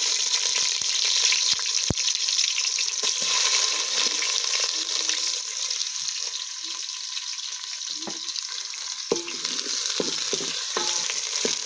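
Food frying in hot oil in a cooking pot: a loud, steady sizzle, with scattered clicks and knocks from stirring that come more often toward the end.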